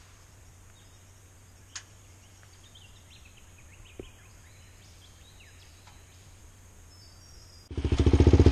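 Quiet bush ambience with a few faint bird chirps and a couple of small clicks. Near the end a single-cylinder dirt bike engine cuts in loud, running with a rapid, even beat.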